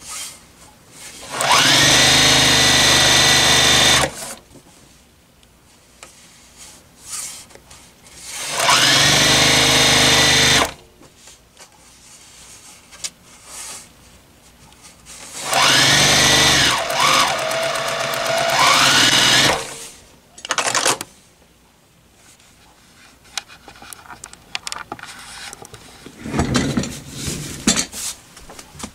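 Electric sewing machine stitching a folded hem in curtain fabric, in three runs of a few seconds each. The motor's pitch rises as each run starts, with quiet pauses between runs and a shorter, softer run near the end.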